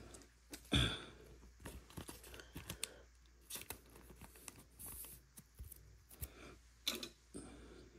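A trading card handled and slid into a clear plastic holder: scattered small clicks and short scraping, rustling sounds of card against plastic, with a louder knock about a second in.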